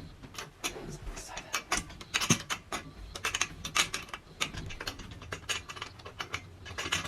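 A run of irregular ratchet-like clicks as the threaded pressure adjuster of a stair gate is turned tight by hand, near the end of its travel.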